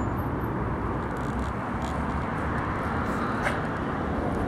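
Steady outdoor background rumble, with a small tick about three and a half seconds in.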